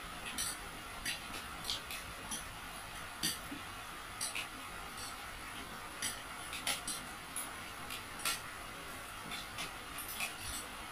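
Spoons and forks clinking and scraping on plates as people eat: irregular light clinks, a few every second or two, over a steady background hiss.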